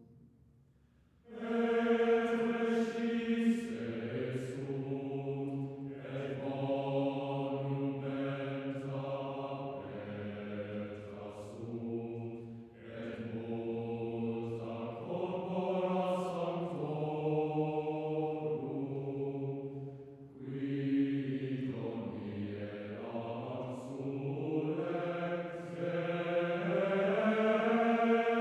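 Choral music: a choir singing slow, sustained chant-like chords in long phrases. It begins about a second in and dips briefly between phrases.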